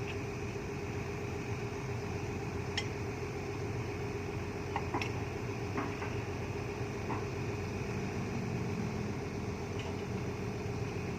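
Heavy diesel engine idling steadily, with a few faint clicks and knocks now and then.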